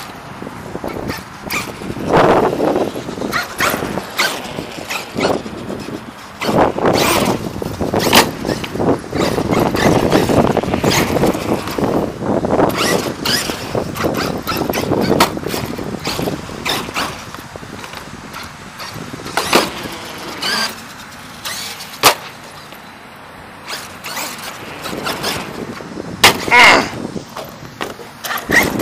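Traxxas E-Revo 2.0 electric RC monster truck driving in bursts: its motor and tyres are loudest about two seconds in, through the middle stretch and again near the end. Sharp knocks and clatter come from the chassis hitting bumps and landing, and the truck is quieter for a while after the middle.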